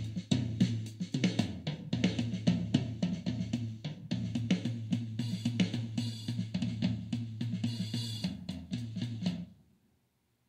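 GarageBand's SoCal virtual acoustic drum kit playing a groove of kick, snare, hi-hat and cymbal hits over a low held note. Near the end the playing stops and it goes silent.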